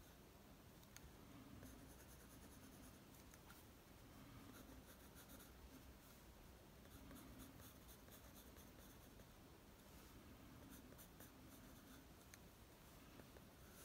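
Pencil scratching on drawing paper in short, irregular sketching strokes, faint.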